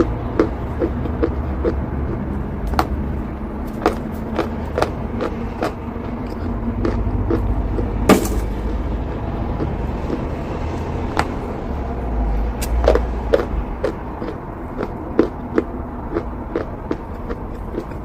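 Crunchy eating chalk being bitten and chewed close up: a string of irregular sharp crunches and clicks, with one louder crunch about eight seconds in, over a steady low rumble.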